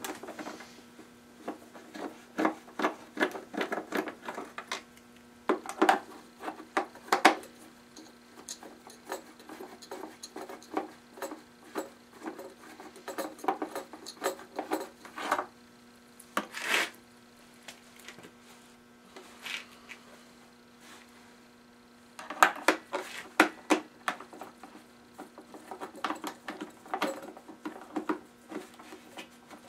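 Screwdriver working the Torx and Phillips screws out of a Porter-Cable pancake compressor's shroud: runs of small clicks, scrapes and rattles of the driver tip, screws and housing, coming in clusters with pauses between them.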